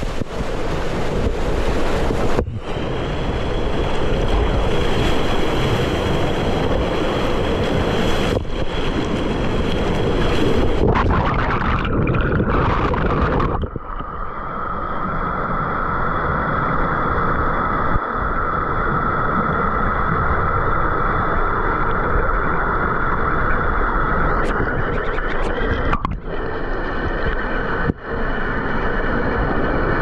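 Fast-flowing water churning and splashing in a wild-river water slide channel, loud and close to the microphone, with a sound that changes abruptly several times.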